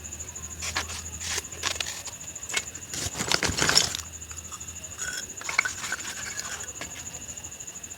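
Crunching and nibbling: a run of crisp clicks and crackles, densest and loudest about three to four seconds in, with a faint steady high whine behind.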